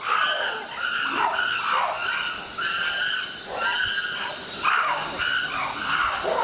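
Chimpanzee squealing calls, repeated about once a second, many of them sliding down in pitch.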